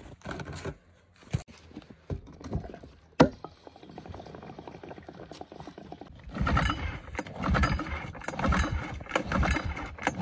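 Clicks and knocks of a plastic gas can being handled at a mini bike's fuel filler, with one sharp click about three seconds in. From about six seconds, a rhythmic run of louder scraping bursts, roughly two a second.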